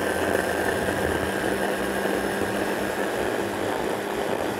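Stick (hand) blender motor running steadily on its chopper bowl, blending a liquid marinade with chopped chilli: an even whirring with a steady hum and whine.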